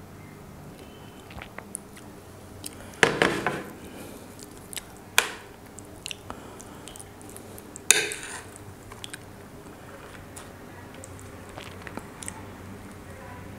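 Close-miked tableware and food handling: a steel spoon and plate clinking and knocking three times, the loudest about three seconds in, with small soft clicks and squishing as rice and gravy are mixed by hand.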